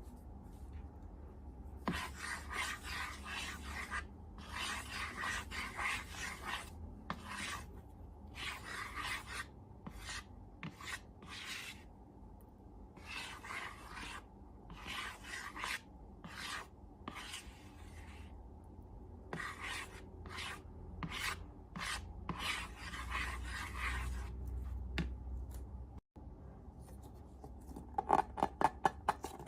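Irregular rasping, rubbing strokes, each lasting from half a second to about two seconds with short pauses between. Near the end they turn into quicker, sharper crackles.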